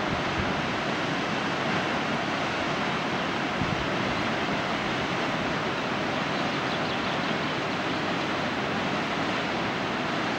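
Waterfall on the Reka river pouring into a gorge pool, a steady rushing of falling water heard from high above, with some uneven low wind rumble on the microphone. A short sharp click right at the start.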